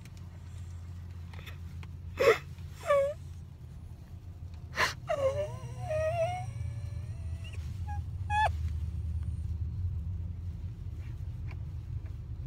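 A woman sobbing while groggy from sedation after a tooth extraction: sharp gasping breaths about two, three and five seconds in, then short high whimpering cries, over a low steady hum.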